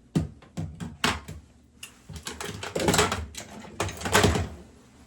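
Objects being handled close by: a run of separate clicks and knocks, then two longer spells of clattering and rustling about halfway through and near the end.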